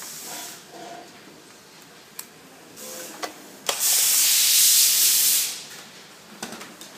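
Cordless electric screwdriver running on a screw in the robot vacuum's plastic underside for about two seconds, starting a little past the middle, with a shorter run and a few sharp clicks just before.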